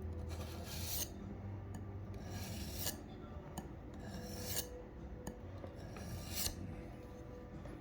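Steel knife blade stroked across a DMT diamond sharpener, four separate abrasive scraping strokes spaced evenly, each lasting about half a second.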